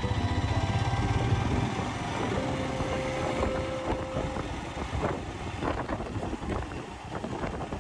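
Royal Enfield Himalayan 411's single-cylinder engine running as the bike rides along, with wind rushing over the microphone. Background music fades out in the first two seconds.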